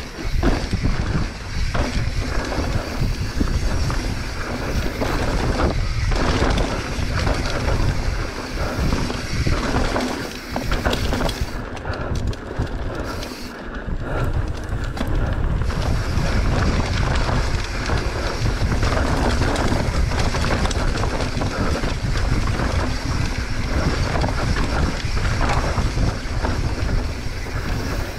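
Mountain bike ridden fast down a dirt trail: wind buffeting the camera microphone, with tyre noise and frequent knocks and rattles from the bike over bumps.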